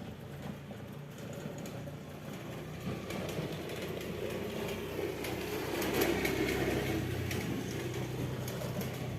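A motor vehicle passing by, its engine hum growing louder to a peak about six seconds in, then easing off slightly.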